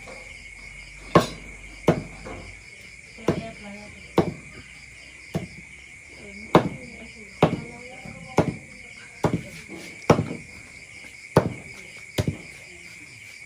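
Cleaver chopping pork belly on a chopping board: about a dozen sharp chops, roughly one a second, over a steady chorus of crickets.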